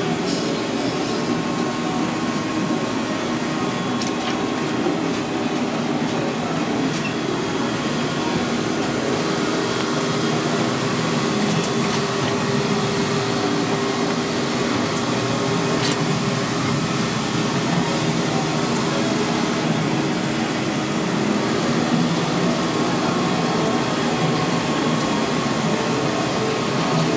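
Steady, unbroken drone of commercial kitchen machinery such as exhaust fans and refrigeration, with a constant low hum.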